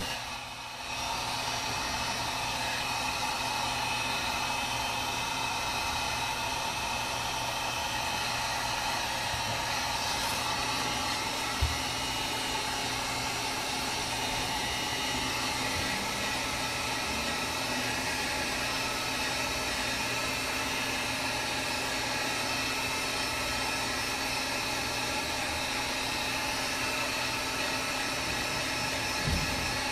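Wagner heat gun running steadily, blowing hot air over the phone's front glass to soften the adhesive beneath it. A single short knock comes about twelve seconds in.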